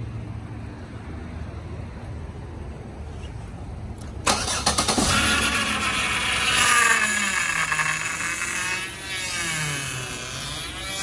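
Power steering pump of a 2010 Chevy Impala with the engine idling. About four seconds in, a loud whining grind starts and wavers up and down in pitch. It is the horrible grinding noise of a pump starved of fluid by a leak.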